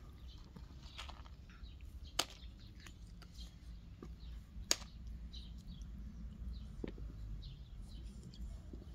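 Faint small birds chirping over a steady low background rumble, with two sharp clicks, about two seconds in and again about four and a half seconds in.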